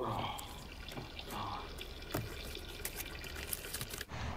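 Water trickling and splashing in a thin steady stream, with a few small drips and clicks.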